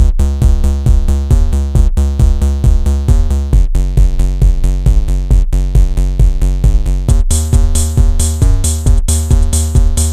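Electronic background music with a steady drum-machine beat and heavy bass, starting abruptly. A bright high rhythm part joins about seven seconds in.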